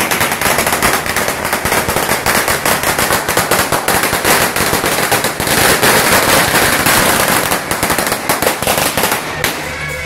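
A long string of firecrackers going off in a rapid, continuous crackle of bangs, stopping shortly before the end.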